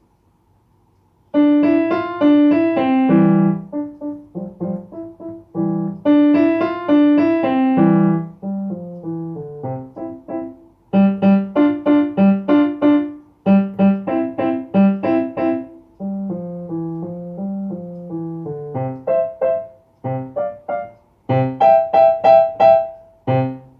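Piano playing a simple beginner's piece in C major, starting about a second in, with short detached notes mixed with smoother, joined phrases. Near the end, quick repeated notes an octave higher imitate popcorn popping, closing on a low note.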